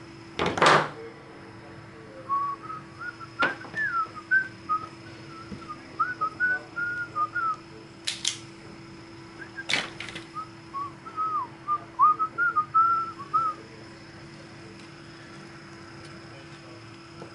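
A person whistling a wavering tune in short notes, in two stretches, over a few sharp clicks of hand tools, including an automatic wire stripper being squeezed. A steady hum runs underneath.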